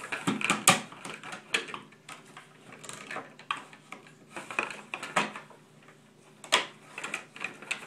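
Irregular clicks and knocks of hard parts being handled and fitted together as a Sensus water meter radio is put through a ring mount bracket and its bottom piece fitted on, with sharper knocks a little under a second in and again near the end.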